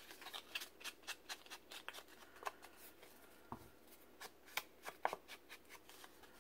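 Ink blending tool dabbed on an ink pad and worked along the edges of paper playing-card pieces, with the cards handled on a cutting mat: faint, irregular taps and scuffs, several a second.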